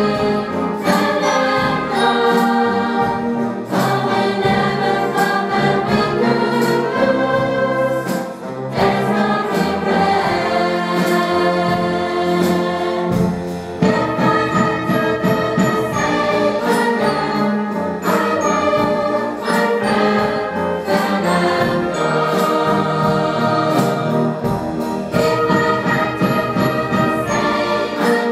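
Women's choir singing with a wind band of brass, saxophones and woodwinds, performed live in a concert hall. The music runs continuously, with short breaths between phrases about 8 and 14 seconds in.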